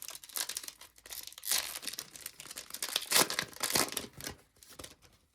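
A Panini Select baseball card pack's wrapper being torn open and crinkled by hand: a run of irregular crackling and ripping, loudest in a few sharp rips in the middle.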